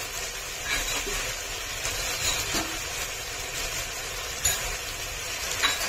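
Spice paste frying in oil in a pan, a steady sizzle, with a few soft knocks as it is stirred.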